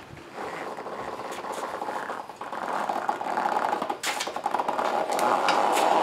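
Steel tube frame and knobby tyres of a homemade go-kart scraping and grinding on the concrete floor as the kart is rocked back up from lying on its side. The sound grows louder, with a click about four seconds in and a heavy knock at the very end as it comes down.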